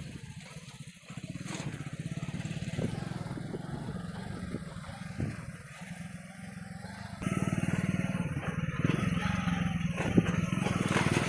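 Hero HF Deluxe's small single-cylinder four-stroke engine running steadily as the motorcycle is ridden, getting louder about seven seconds in.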